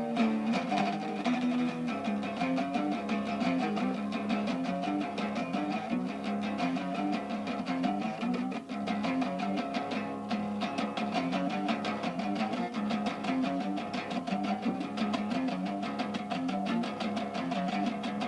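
A guitar playing a fast, evenly picked line, its notes shifting continuously.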